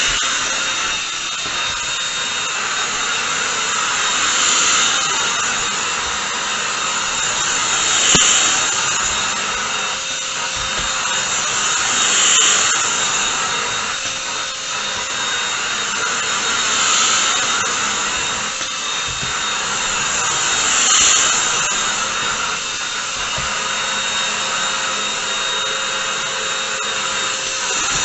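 Bush 25.2V cordless stick vacuum cleaner running on its 150W DC motor with its motorised brush head, a steady high whine and rush of air. It swells louder about every four seconds.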